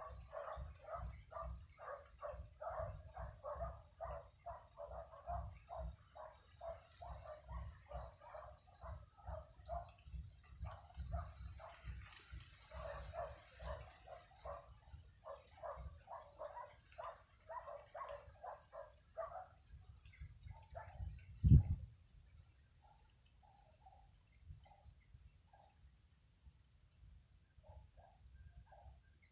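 Greater coucal calls: a long run of deep hoots, about four a second, that breaks off about two-thirds of the way through, with only scattered hoots after. A steady high insect drone runs underneath, and a single loud thump comes shortly after the hooting stops.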